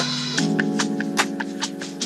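Background music: held chords over a steady, quick ticking beat, with a chord change about half a second in.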